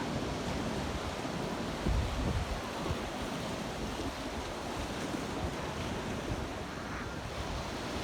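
Ocean surf washing steadily onto the beach, with wind rumbling on the microphone at times.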